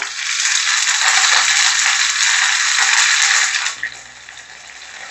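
Fresh curry leaves dropped into hot coconut oil with popping mustard seeds: a loud spluttering sizzle that falls off sharply after about three and a half seconds to a fainter steady sizzle.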